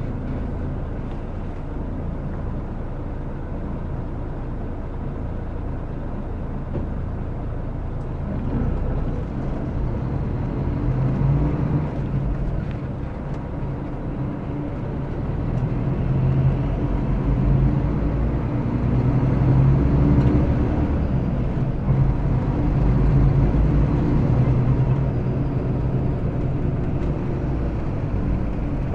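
Mercedes-Benz O-500RS coach's rear-mounted diesel engine heard from on board while the bus pulls away, running steadily and growing louder in two pulls, from about eight seconds in and again from about sixteen seconds, with a lull between them.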